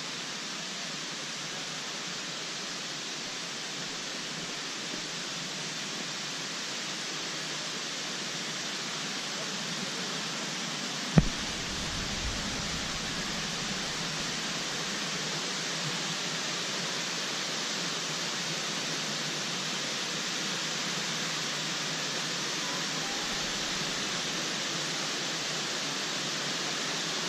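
Steady rush of falling water from the Kuang Si waterfall cascades, growing slightly louder after about eight seconds. A single sharp thump comes about eleven seconds in.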